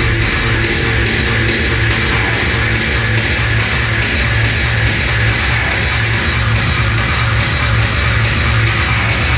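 Hard electronic dance music mixed live by a DJ and played loud over a club sound system, driven by a fast, steady kick drum.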